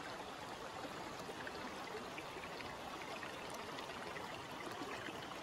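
Shallow river water running steadily over stones.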